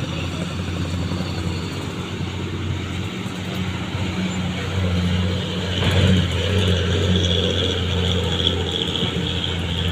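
An old bus's diesel engine running steadily, growing louder about five seconds in.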